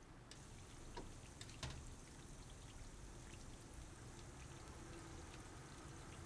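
Food sizzling in hot oil: a faint steady sizzle with scattered crackles and pops.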